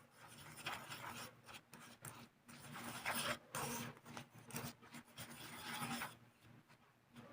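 Faint, uneven scraping and rubbing as sugar and cardamom are mixed together in a dish, stopping about six seconds in.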